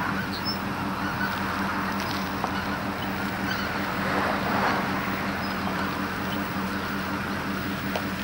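A large flock of geese, snow geese among them, calling as one dense chorus that swells about four seconds in, with a steady low engine hum underneath.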